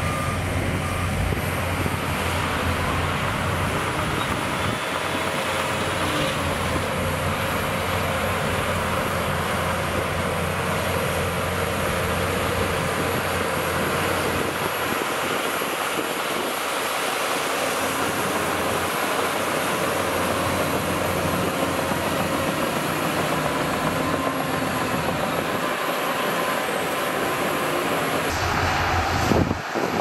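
Diesel engines of Shantui DH17C2 crawler bulldozers running steadily while they push dirt. The sound changes abruptly near the end.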